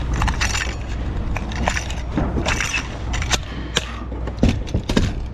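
A coil of collated nails rattling and clicking as it is handled and loaded into the canister magazine of a pneumatic coil nailer. The clicks come irregularly, with a few sharper metallic clicks about four and a half to five seconds in.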